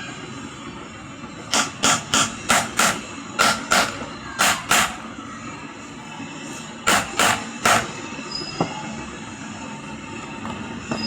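About a dozen short, sharp knocks or scrapes from hand work on a pedestal fan's fitting, coming in quick runs of two and three, over a steady background noise.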